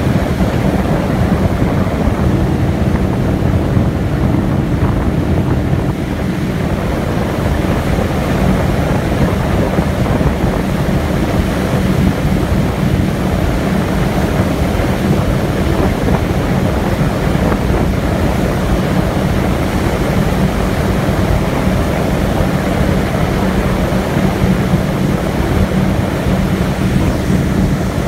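Boat engine droning steadily at a constant low pitch, with water rushing past the hull and wind buffeting the microphone.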